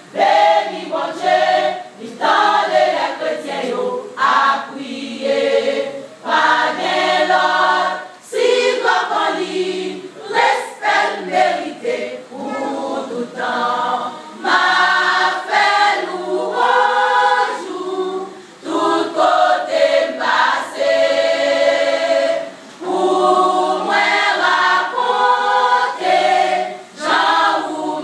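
Women's choir singing, in phrases separated by short breaks.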